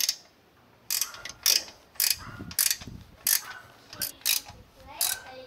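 Ratcheting wrench clicking in a string of short strokes as it tightens nylon-insert lock nuts on the compressor pump's mounting bolts.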